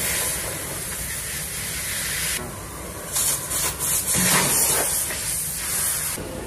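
A loud, steady hiss that drops away for a moment about two and a half seconds in, then comes back and stops near the end.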